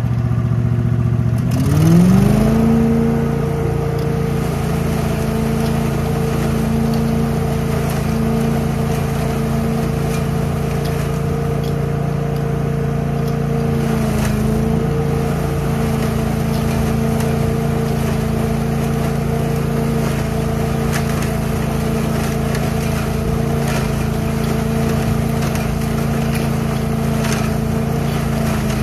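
Billy Goat truck-loader leaf vacuum's gas engine revving up from idle about a second and a half in, then running steadily at full speed as its hose sucks up leaves. The pitch sags briefly about halfway through, then recovers.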